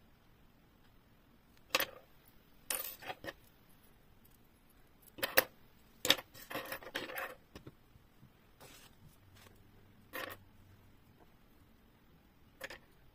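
Crochet tools and a metal wallet frame handled on a tabletop: a dozen or so light knocks and metallic clicks as they are picked up and set down, loudest about five to six seconds in.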